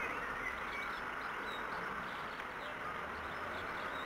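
Steady outdoor background hiss with faint birds chirping now and then.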